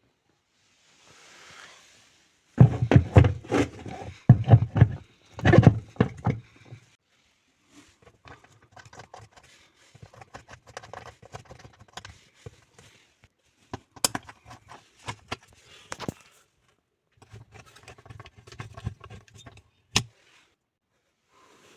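Hard objects being handled: a run of loud clattering knocks, then lighter scattered clicks and rattles with a couple of sharp single clicks.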